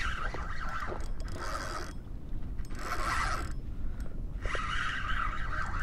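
Fishing reel being cranked in several short bursts of raspy winding, each about a second long, as a hooked red drum is reeled in.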